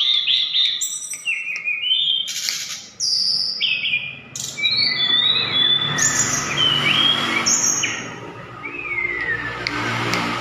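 Sulingan (tledekan gunung) songbird singing in its energetic fighting style. It gives a rapid run of repeated whistled notes at first, then varied clear whistles and slurred, gliding phrases over a low background rumble.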